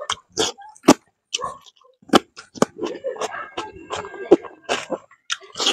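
Close-up mouth sounds of a man eating fish curry by hand: a run of sharp, irregular lip smacks and clicks as he chews.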